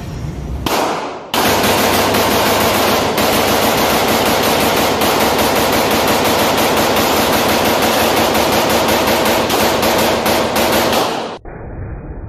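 AR-style rifle with a 14.5-inch barrel firing a long, fast, unbroken string of shots from a drum magazine. The firing cuts off suddenly near the end, where the bolt fails to seat once the freshly applied oil has dried up.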